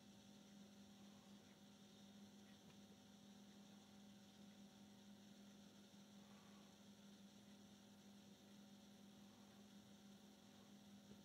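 Near silence with a faint, steady electrical hum: one low tone with a few fainter higher ones.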